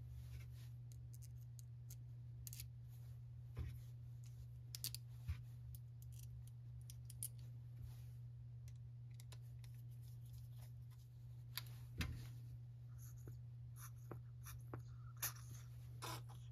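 Faint scattered clicks and light ticks of a screwdriver and small screws as the purge-bulb retainer is screwed back onto a small Zama carburetor, over a steady low hum.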